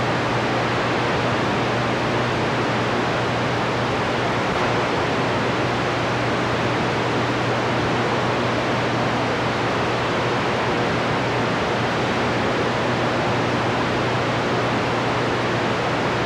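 CB radio receiver on channel 28 (27.285 MHz) giving out a steady hiss of static with no station transmitting: an open, empty channel between transmissions. A steady low hum sits under the hiss.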